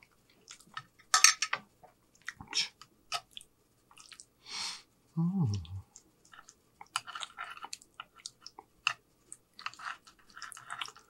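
Close-miked chewing and wet mouth sounds of a person eating spaghetti and meatballs, with many sharp clicks and smacks. A short low "mm" hum comes about five seconds in. Later, a fork twirls spaghetti against the plate.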